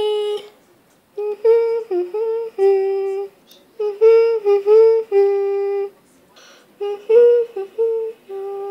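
A high voice humming a wordless tune in short phrases of several notes, each phrase ending on a held note, with brief pauses between phrases.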